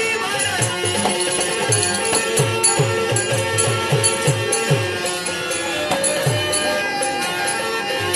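Indian devotional music: a hand drum plays a steady beat of low bass strokes that bend downward in pitch, over sustained melodic tones, with light rattling percussion.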